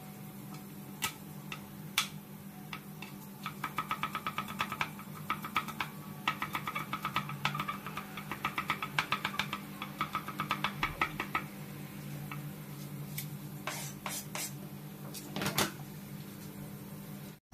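Kitchen knife rapidly chopping peeled garlic cloves on a cutting board, a run of quick taps several to the second lasting several seconds, with a few scattered clicks before it and a few louder knocks near the end. A steady low hum runs underneath.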